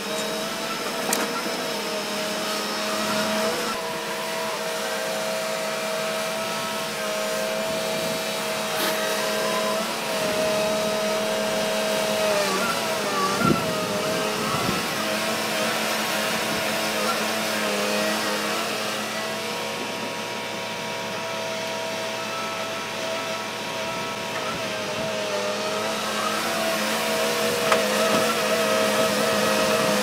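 Wheeled log loader's engine and hydraulics running steadily with a whining tone as the grapple swings logs. The pitch dips briefly about halfway through.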